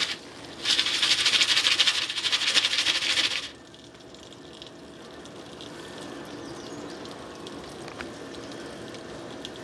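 Jiffy Pop popcorn pan shaken on an electric coil burner: the foil pan and the kernels inside rattle and scrape fast for about three seconds, then stop. Only a softer steady hiss follows.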